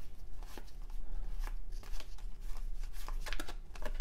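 1993 Topps cardboard baseball cards being thumbed through by hand, each card sliding off the stack with a dry flick. The clicks and rustles come irregularly, several a second, and grow busier near the end.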